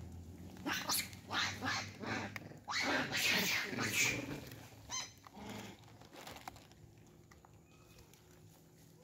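Long-tailed macaques calling: a run of short harsh calls about a second in, then a longer harsh call, and a brief high squeal around five seconds.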